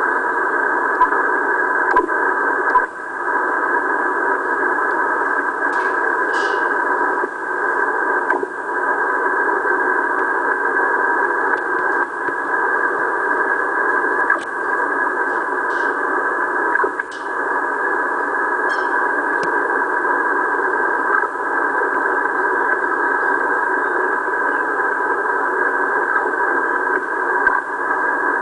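Strong wideband interference (QRM) on the 20 m amateur band heard through an Icom transceiver's receiver in upper-sideband mode: a loud, steady, dense noise with a few steady tones in it, held within the receiver's voice passband, with brief dropouts now and then. The uploader wonders whether it is a radar signal.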